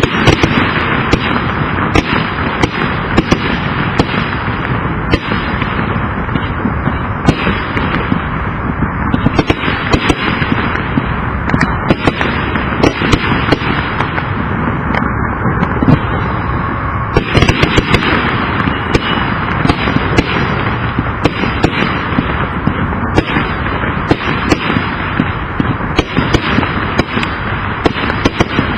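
Consumer fireworks cake of 112 shots, 1.25-inch calibre, firing continuously: a dense run of rapid bangs over a steady crackling hiss.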